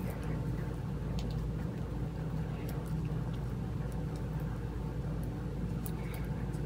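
Steady low mechanical hum from a room appliance, unchanging throughout, with a few faint light clicks and rustles of hands handling hair.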